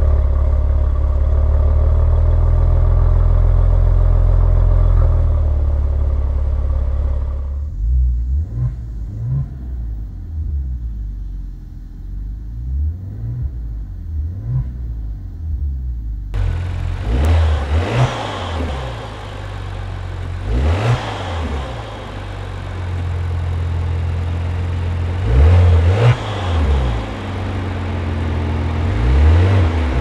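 2017 Maserati Ghibli S Q4's twin-turbo V6 running steadily through its exhaust in Normal mode, then blipped in a string of short revs that rise and fall, some single and some in quick pairs.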